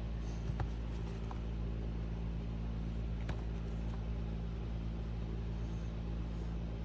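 Steady low hum of background noise, with a couple of faint taps and rustles as hands pick up and handle a cardboard CD album.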